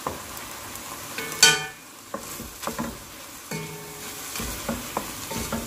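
Chicken strips sizzling in oil in a nonstick wok while a wooden spatula stirs them, clicking and scraping against the pan. One loud, brief scrape comes about a second and a half in.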